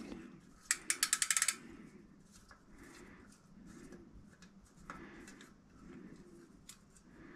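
Rapid ratchet clicking, about ten clicks a second for just under a second, then faint light metal taps and scrapes from a small tool working the grub screw at the centre of a bicycle cassette.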